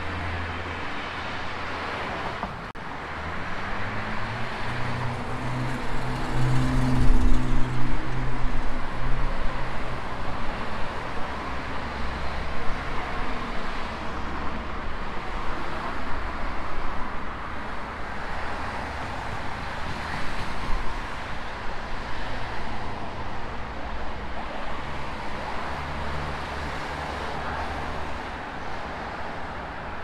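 Road traffic as a steady hiss, with one vehicle's engine passing close and loudest about seven seconds in, and a fainter engine hum again near the end.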